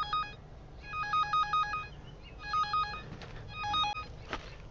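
Electronic warbling beeps from an underground cable locator receiver tracing a buried line, coming in repeated bursts of quick stepping tones, with a brief rising sweep near the end.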